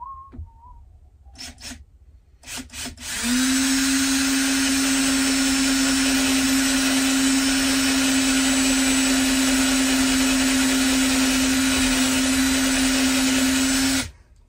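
Handheld cordless drill with a Snap-on bit boring a mounting hole through a small bracket held in a bench vise. After a few light handling clicks it spins up about three seconds in, runs at a steady high whine for about eleven seconds, and stops abruptly near the end.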